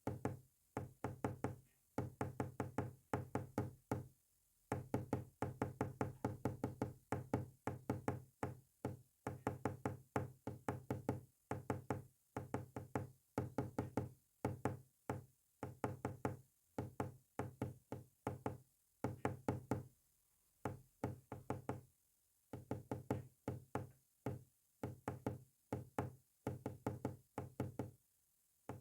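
Morse code sounded as rapid, short, low-pitched beeps in quick runs of characters, separated by brief gaps and a few longer pauses.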